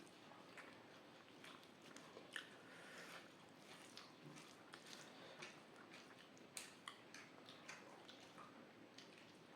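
Close-up eating sounds: a person chewing rice and curry by mouth, with irregular soft wet smacks and small crunchy clicks.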